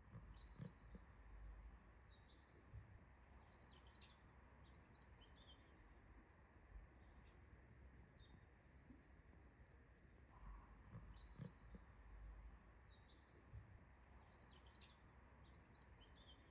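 Faint ambience of small birds chirping and twittering, many short high calls, over a steady low rumble with a few soft thumps.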